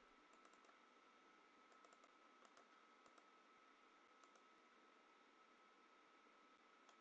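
Near silence: a few faint computer mouse clicks spread through it, over a faint steady high whine of room tone.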